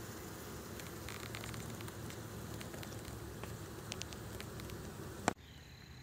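Honey bee swarm humming at a hive entrance as the bees crawl in, a steady low buzz with faint crackling ticks. It cuts off with a sharp click about five seconds in.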